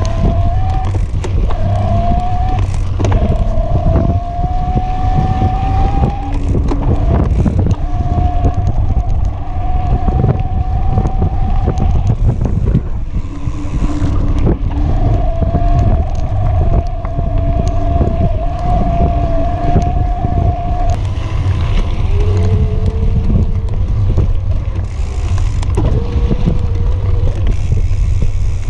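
Electric mountain bike's motor whining under pedal assist, the whine holding for several seconds at a time and shifting slightly in pitch, with gaps. Under it, a steady rumble of knobby tyres on dirt trail and wind on the microphone, broken by frequent knocks and rattles from bumps.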